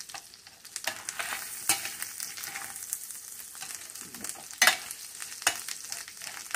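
Chorizo and bacon sizzling in rendered bacon fat in a stainless steel skillet over medium heat, the chorizo nearly cooked. A slotted metal spatula stirs them, scraping and knocking on the pan a few times, loudest about four and a half seconds in.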